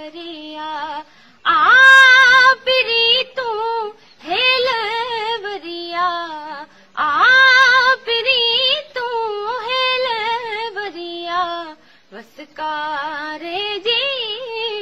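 A high female voice singing a song solo, in long held notes that bend and waver, phrase after phrase with short breaths between them.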